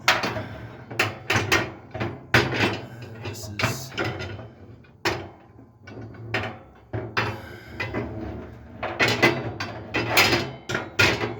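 Metal upper grill rack of a Pit Boss Sportsman 1100 pellet grill clattering and scraping against its brackets inside the grill, a run of irregular knocks and scrapes as it is forced into a very tight fit.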